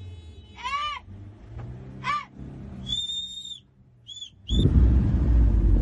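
Short, high-pitched calls, each rising then falling, come about once a second, followed by a thin whistle-like tone and two short blips. About four and a half seconds in, the filming safari jeep's engine starts running loudly, a low rumble that takes over.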